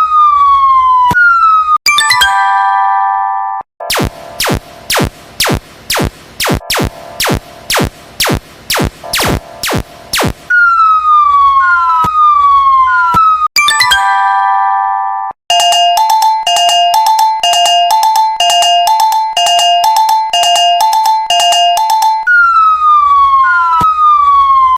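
A run of electronic railroad-crossing alarm sound effects. Falling whistle tones with chiming chords come first. Then about three sharp bell-like dings a second for several seconds, then a two-note alarm alternating high and low, and the falling tones return near the end.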